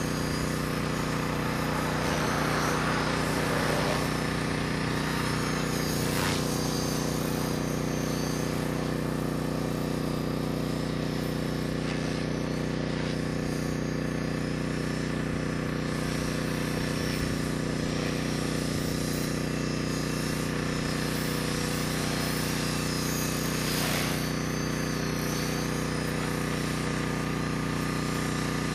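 Align T-Rex 450 XL CDE electric RC helicopter in flight: a steady drone of its rotor blades and electric motor.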